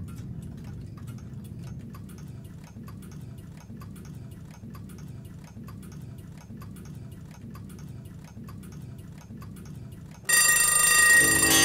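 Clock ticking at a steady, fast, even rate over a low rumble. About ten seconds in, a loud bell-like chime of many ringing tones cuts in suddenly.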